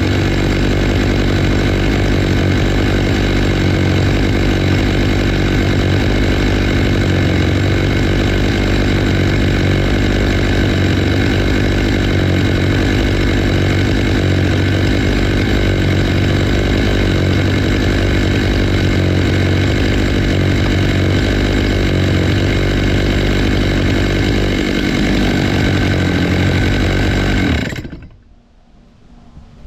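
Stihl MS 661 two-stroke chainsaw running steadily with a ripping chain, milling a black walnut log into slabs in a Logosol F2 Plus chainsaw mill. The sound cuts off abruptly near the end.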